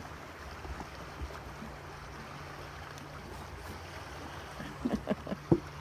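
Steady wash of water around a fishing boat, with a low steady hum underneath and a few short, soft sounds near the end.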